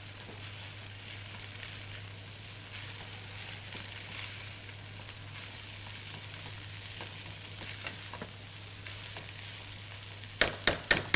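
Egg fried rice sizzling in a hot pan on high flame as a spatula stirs and scrapes through it. Four sharp knocks come in quick succession near the end.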